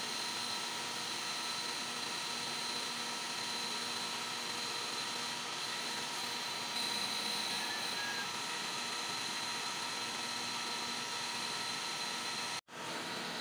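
Metal lathe running steadily, turning a metal hydraulic-cylinder piston, with a steady machine hum and a thin high whine; the sound drops out for an instant near the end.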